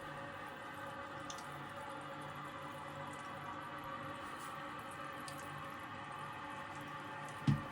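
Toilet tank fill valve running, a steady hiss of water refilling the tank, with one dull thump near the end.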